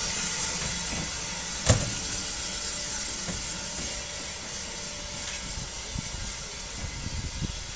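Railway passenger coaches of a steam train rolling slowly past, under a steady hiss of steam. A single sharp clank comes about two seconds in, and a few soft knocks from the running gear come near the end.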